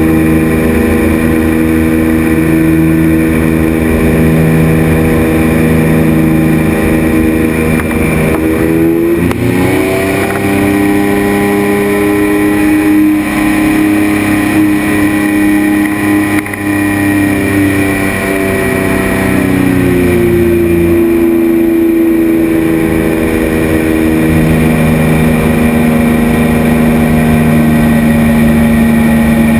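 Engine and pusher propeller of a Polaris flying inflatable boat (motorised hang-glider trike) running in flight. It drones steadily, revs up about nine seconds in, holds the higher pitch, then eases back about twenty seconds in.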